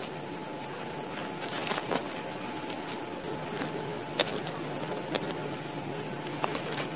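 Steady high-pitched insect chirring, with a few sharp clicks from a small blade cutting wheat stalks; the loudest click comes a little after four seconds in.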